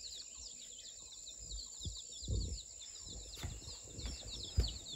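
Domestic chicken chicks peeping continuously, a rapid stream of short, high, falling peeps. A few soft low thumps come around the middle and near the end.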